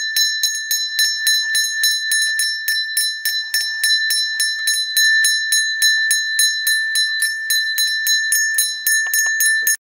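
Brass hand-held puja bell (ghanta) rung rapidly and continuously during the lamp-waving aarti, several strikes a second over a steady high ringing tone. It stops abruptly near the very end.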